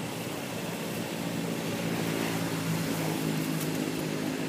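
A motor engine drones steadily, a little louder in the middle.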